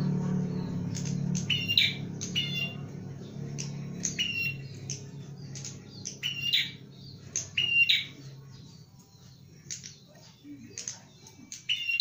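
A caged prinia (prenjak) calling: short, sharp chirps repeated about once a second, often in quick pairs. A steady low hum runs under them and fades out about two-thirds of the way through.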